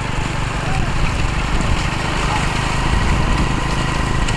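An engine running steadily over a low rumble, with no clear change.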